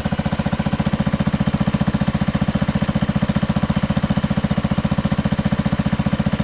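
Sears Suburban 12 garden tractor's engine idling at low RPM through a freshly fitted shusher muffler, an even exhaust putter of about a dozen beats a second.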